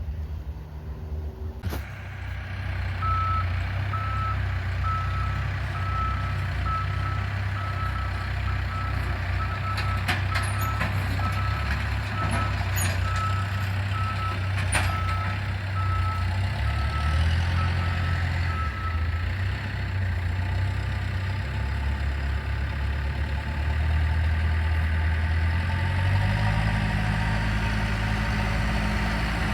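A heavy work vehicle's diesel engine running while its backup alarm beeps steadily, about two beeps a second, for some sixteen seconds as it reverses, with a few metallic knocks; near the end the engine revs up and gets louder.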